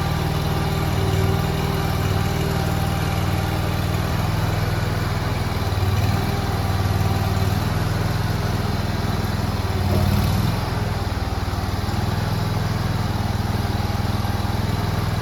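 Mini skid steer's small engine running steadily under operation, rising briefly in level about a second in, around six seconds and again around ten seconds in.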